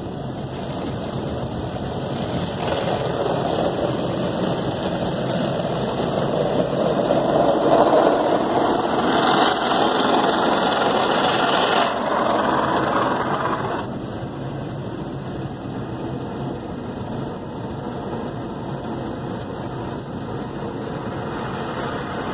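Car wash top brush spinning over the windshield with water spraying, heard from inside the car: a steady swishing and spraying that swells to its loudest midway and drops back about fourteen seconds in.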